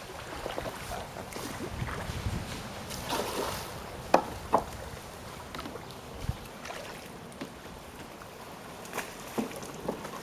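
Water lapping and sloshing around a bamboo river raft as it moves downstream, with a few sharp knocks or clicks, the clearest about four seconds in and three more near the end.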